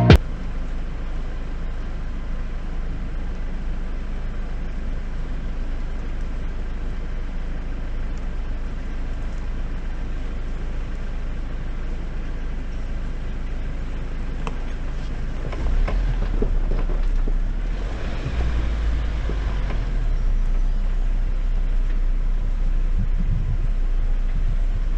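Jeep Wrangler engine idling with a steady low rumble, then getting louder about 16 seconds in as the Jeep pulls forward along the dirt trail.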